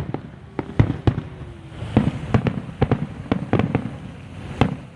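Fireworks going off: a string of sharp bangs and pops at irregular intervals, several a second at times, over a steady low rumble.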